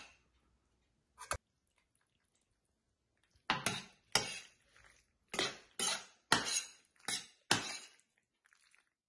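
Metal spoon scraping and knocking against a stainless steel frying pan as penne in zucchini cream is stirred and tossed. A couple of light clicks come first, then seven strokes in quick succession, roughly every half second.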